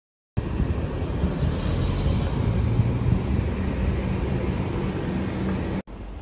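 Road traffic noise: a steady low rumble of car engines and tyres on a busy street. It cuts off suddenly near the end to a quieter, fainter hum.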